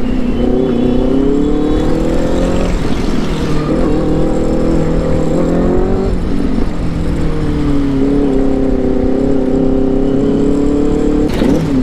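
Benelli 600i inline-four motorcycle engine accelerating through the gears. Its pitch climbs, falls at a shift about three seconds in, climbs again, falls again around six seconds, then holds fairly steady.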